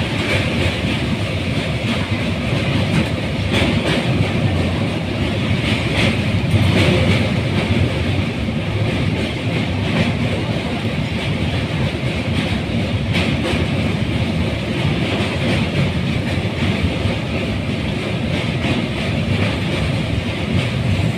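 Train running across a steel truss bridge, heard from inside a carriage: a steady rumble of wheels on rail with a few faint clacks.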